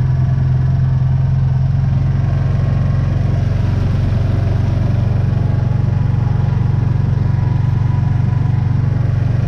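Kawasaki Teryx side-by-side's engine running with a steady drone as it pushes through flood water, with water spray splashing over the front of the machine.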